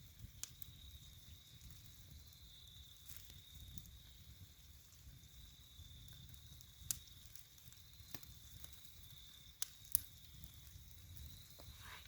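Campfire crackling: scattered sharp pops over a low rumble, two louder pops about seven and ten seconds in, with a steady high-pitched hum throughout.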